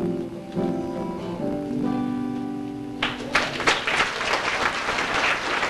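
Acoustic guitar strumming its last few chords, which ring out; about halfway through, audience applause breaks out.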